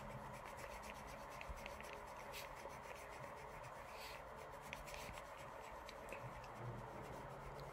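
Faint scratchy strokes of a pen colouring on paper, with small ticks here and there.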